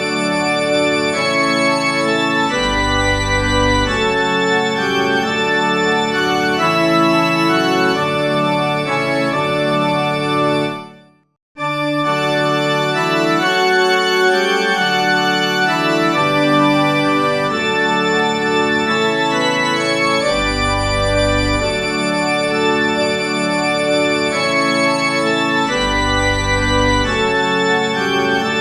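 Organ playing held chords, with deep bass notes coming in now and then. The music fades out just before eleven seconds in and starts again abruptly a second later.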